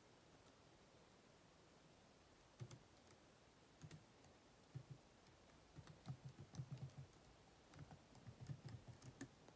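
Quiet keystrokes on a detachable tablet keyboard: a few single taps, then quicker runs of typing from about six seconds in.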